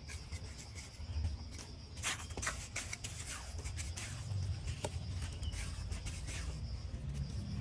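Steel trowel scraping and scooping wet cement mortar in a bucket, a handful of short scrapes and taps.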